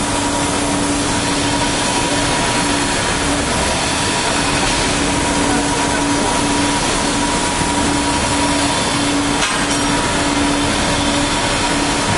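Kaltenbach WBZ 1500 plate drilling and profiling machine running while its torch cuts steel plate: a loud, steady hiss with a constant hum and a fainter higher tone.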